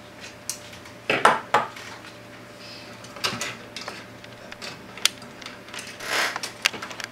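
Small hard objects, metal among them, being handled on a workbench: irregular clinks, clicks and clattering knocks, loudest about a second in.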